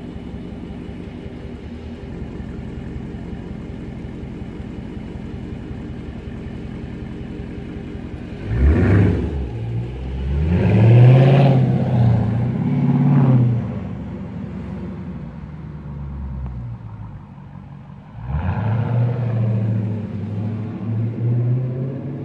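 Dodge Charger Scat Pack's 6.4-litre HEMI V8 running with the mufflers deleted: idling steadily, then revving up as the car accelerates about eight seconds in, with the pitch rising and falling through the gears. It eases off and accelerates loudly again near the end.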